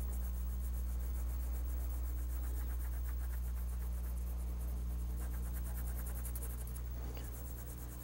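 Pencil shading on drawing paper: a quick, steady scratching of many short strokes as reflections are hatched in, thinning out about seven seconds in. A steady low hum runs underneath.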